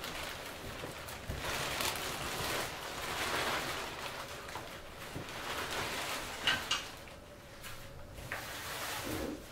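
A garment bag rustling and crinkling as it is lifted, handled and laid out on the floor, the rustle swelling and fading in waves. Two short clicks come close together about two-thirds through.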